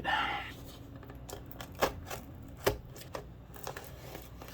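Irregular sharp clicks and knocks from a shipping package being handled and opened, the two loudest about two and almost three seconds in.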